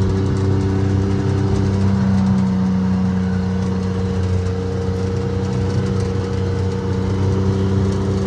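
Vehicle engine running steadily with an even hum, as heard while driving along.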